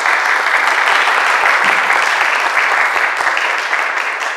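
Applause: many hands clapping in a dense, steady patter that begins to ease off near the end.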